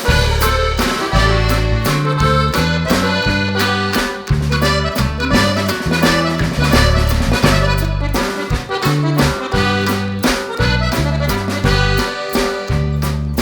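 Background music led by an accordion, with a bouncing bass line and a steady beat.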